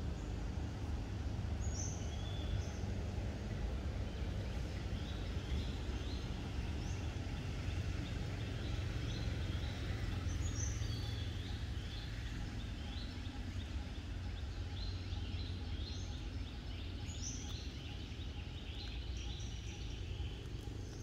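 Outdoor ambience: a steady low rumble with many short, high bird chirps scattered through it.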